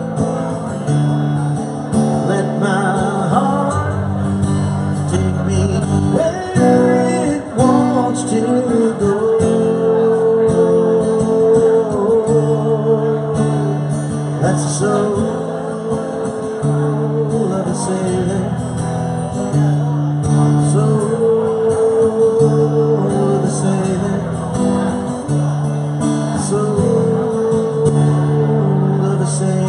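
Live music: acoustic guitar strummed under a held, bending lead melody line, an instrumental passage of a song with no words sung.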